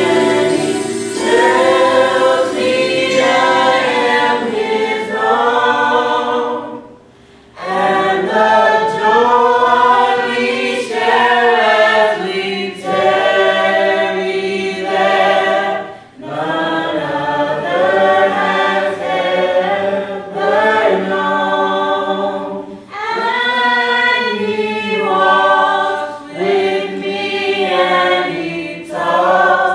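A small group of women and men singing a hymn together in harmony over microphones, in long sung phrases with a brief break between phrases about seven seconds in and again about sixteen seconds in.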